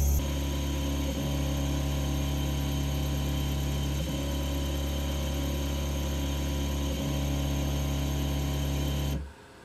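Stepper motors driving the belt-driven X axis of an OpenBuilds OX CNC router back and forth in an axis test: a steady buzzing hum with a brief break each time the carriage reverses, about every three seconds, stopping abruptly near the end. The hum stays even, with no missteps: the axis is running smoothly.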